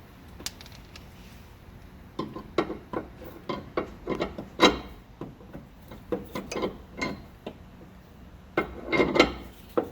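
Irregular metallic clicks, scrapes and rattles as sway bar end link hardware is fitted with hand tools, with a louder flurry near the end.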